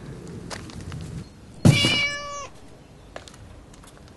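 A cat meows once, a single drawn-out meow of under a second, about a second and a half in. It starts suddenly with a thump, holds one pitch and dips slightly as it ends.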